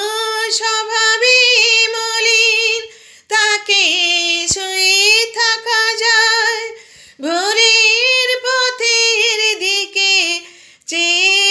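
A woman singing a Bengali song unaccompanied, drawing out long notes with a wavering vibrato in four phrases, with short pauses for breath between them.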